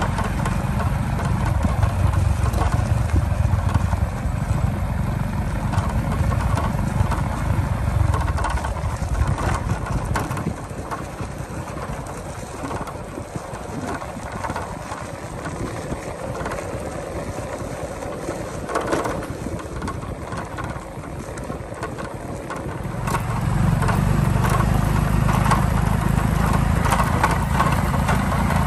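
Motor vehicle engine running while travelling along a rough country road, with road and wind noise. The engine's low rumble is strong for about the first ten seconds, drops back for a stretch, and comes up strong again about twenty-three seconds in.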